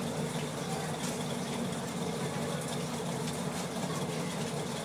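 Steady low mechanical hum that stays unchanged throughout, with no clear rhythm.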